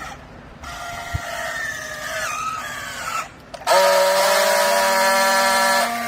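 Hydraulic baling press running: a pitched mechanical whine with several overtones that sags slightly lower for a couple of seconds, then, after a brief dip, a louder steady whine that starts abruptly.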